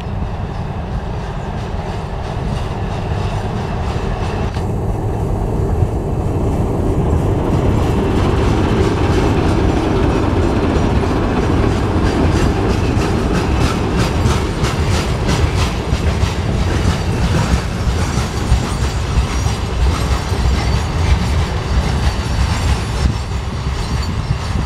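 A TEM18DM shunting diesel locomotive drawing near and passing close by, its diesel engine running with a heavy low rumble that grows louder over the first several seconds. From about halfway through, the insulated thermos box cars behind it roll past with a steady run of wheel clicks over the rail joints.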